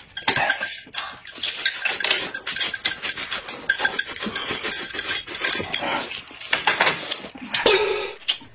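Chopsticks clicking and scraping against plates in quick, irregular strokes, mixed with the handling of food being picked up and wrapped in a soft flatbread.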